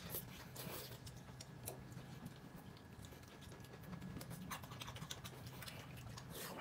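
Faint, scattered light clicks and scratches over a low steady hum.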